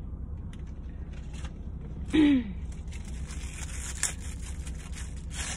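Thin plastic topping packet crinkling and crackling as it is folded and crushed by hand, with a few sharper crackles. About two seconds in comes a short hum of a voice that falls in pitch, all over a steady low hum.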